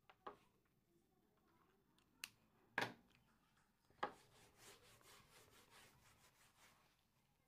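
A few sharp taps, then a hand wiping marker writing off a whiteboard: faint rubbing in quick back-and-forth strokes, about three a second, starting about four seconds in.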